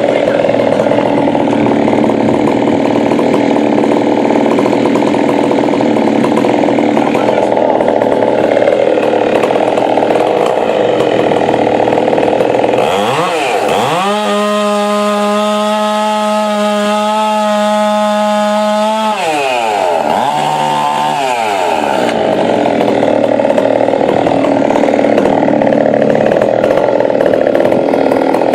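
Large two-stroke chainsaw cutting wood under load, then revving free at a steady high pitch for about six seconds, dropping off, blipping once more, and going back into the cut.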